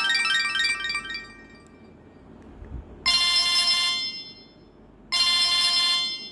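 Samsung GT-E1150 mobile phone ringtone: a fast run of electronic notes dies away about a second in. After a pause, the same short multi-tone ring sounds twice, about two seconds apart.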